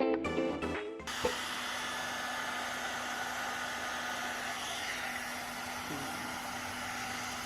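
One-step hair dryer and styler (hot air brush) blowing steadily, a constant rush of air with a faint low hum, starting about a second in as background music cuts off.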